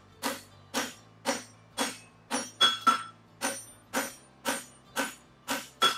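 Farrier's hammer striking an aluminum horseshoe on the anvil in a steady rhythm of about two blows a second, some blows ringing clearly. The branch of the shoe is being drawn out and flattened.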